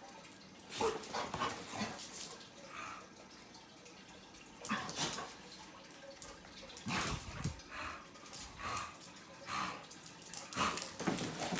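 An English bulldog and a border collie playing together, with scattered short dog noises and scuffling on blankets and a tile floor. The louder moments come about 1, 5, 7 and 11 seconds in.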